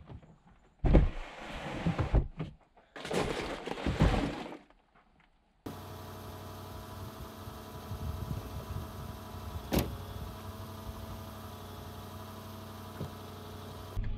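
Gear being loaded into an SUV's cargo area: a plastic storage tote scraping and sliding in two bursts. This is followed by a steady outdoor background hiss with a single sharp knock about ten seconds in.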